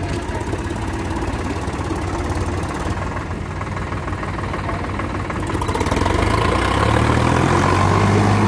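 Sonalika Sikander DI 50 RX tractor's diesel engine running as it pulls a trolley loaded with soil. It grows louder and deeper about six seconds in.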